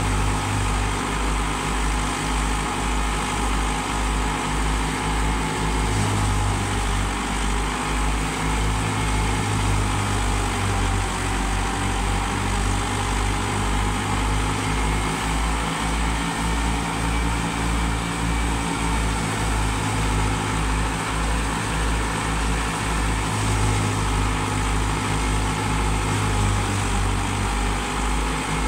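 Massey Ferguson 385 tractor's four-cylinder diesel engine running steadily under load, powering a wheat thresher, whose drum and fan add to a continuous mechanical hum with a steady low pulsing.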